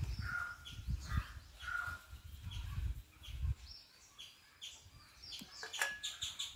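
Small birds chirping repeatedly in the background, the short calls coming thicker near the end. Low muffled rustling and soft knocks run through the first half.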